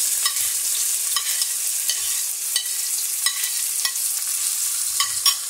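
Chopped onion sizzling in hot oil with cumin and mustard seeds in a stainless steel pan, a steady frying hiss. Scattered sharp clicks of a metal spoon as the onion is scraped off a plate and stirred in the pan.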